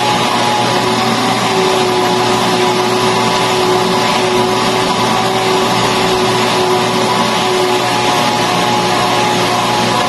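Canister vacuum cleaner running steadily, a constant motor whine over a rush of suction as its hose nozzle is worked over fabric sofa upholstery.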